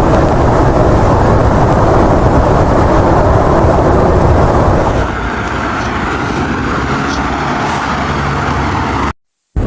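Loud steady rushing noise with a low rumble beneath, easing a little about five seconds in.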